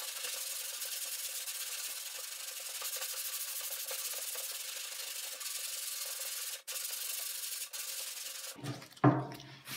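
Long sanding board with sandpaper worked by hand over body filler on a car fender: a steady rasping hiss of sanding strokes, broken twice briefly near the end. A sudden loud thump follows about nine seconds in.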